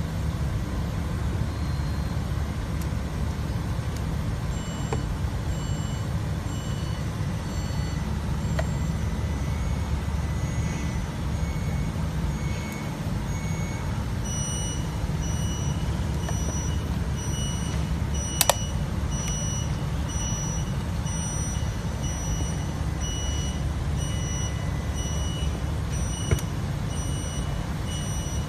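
Steady low background rumble with faint, short high beeps repeating at an even pace, more regular in the second half, and a single sharp click about two-thirds through.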